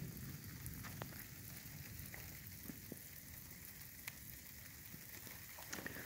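Light rain falling: a faint, steady patter with a few scattered drop ticks.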